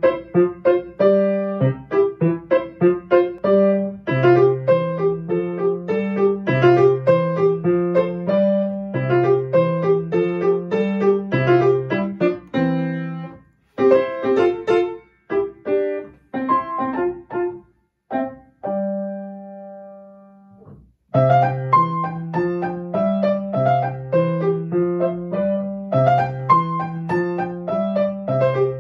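Solo grand piano playing a lively hoedown tune, a bouncing bass alternating between two low notes under a quick melody. A little past halfway it breaks into short pauses and rings out on a held chord that fades away, then the tune starts up again.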